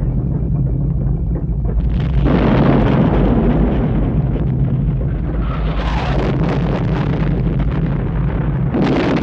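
Film sound effects: a continuous deep rumble with loud surges of crashing noise, one starting sharply about two seconds in, another around six seconds and a third near the end.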